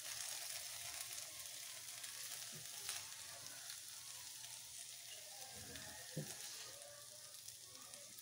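Chicken karela curry faintly sizzling in a hot non-stick frying pan while a silicone spatula scrapes and scoops it out onto a plate, with a few soft knocks.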